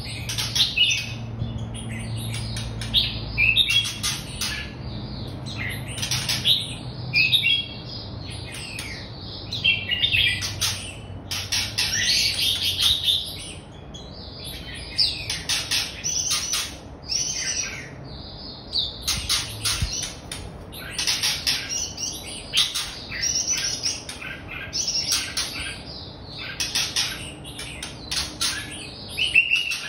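Red-whiskered bulbul singing: short, chirpy, warbling phrases, one after another with brief gaps between them.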